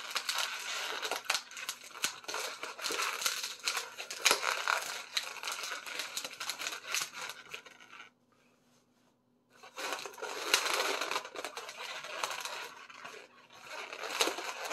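Inflated latex twisting balloons (260s) being handled and twisted, rubbing and squeaking against each other in a dense, scratchy crinkle. The handling stops for about a second and a half just past the middle, then resumes.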